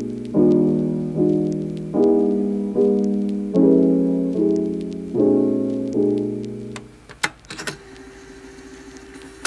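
Background piano music: chords struck about every 0.8 seconds, dying away about seven seconds in. A few short clicks and a faint held tone follow.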